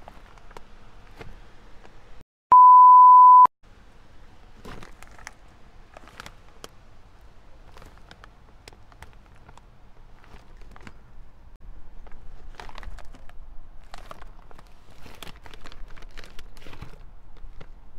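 A blooper beep sound effect: one loud, steady beep tone about a second long, starting about two and a half seconds in. Around it, a bag of Takis chips crinkles and clicks in the hands, more busily from about twelve seconds on.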